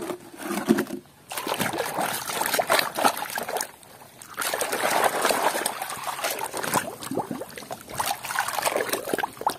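Muddy water sloshing, splashing and trickling as hands scrub plastic toys, among them a toy police car, in a basin.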